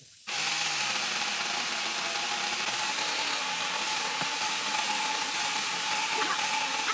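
Small handheld cordless chainsaw switched on about a third of a second in and running steadily, a constant electric-motor whine over the chain's rattle.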